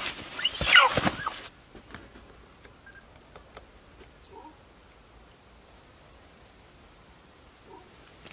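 A chicken squawking loudly as it is caught, cutting off suddenly about a second and a half in. After that there is only a steady high insect drone with a few faint ticks.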